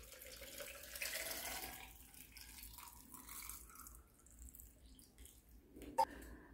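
Water pouring in a thin stream from a jug into a glass jar full of dried dates, faint and strongest in the first two seconds. A single light knock comes near the end.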